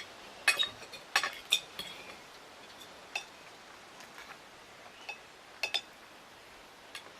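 Irregular light clicks and taps on window glass, about eight in all, with two quick pairs near the middle and end.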